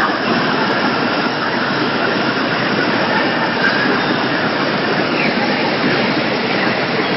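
Automatic poultry slaughter and processing line running: a loud, steady, even noise of machinery with no distinct strokes.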